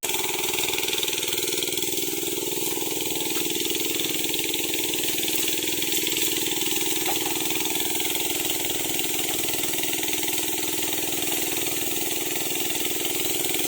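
Small engine of a Sanchin MS30 sprayer running steadily at a constant speed while spraying.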